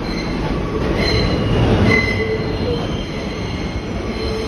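New York City subway car running on the track, heard from inside: a steady rumble with thin, high wheel squeals coming and going, loudest about two seconds in.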